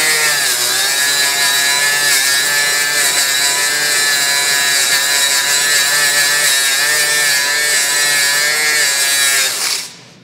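Milwaukee M12 right-angle die grinder, set to speed 3, spinning a 3-inch flap disc against a rusty brake rotor under light pressure. Its motor whine dips in pitch several times as the disc bites, keeps running without dropping into overload protection, and stops shortly before the end.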